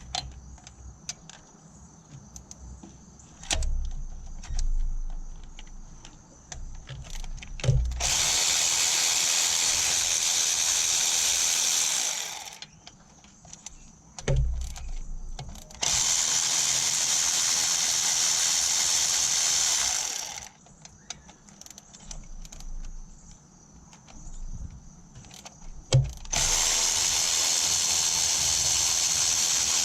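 Three long bursts of spraying hiss, each about four seconds, starting and stopping abruptly, with clicks and knocks of tools and parts handled in between.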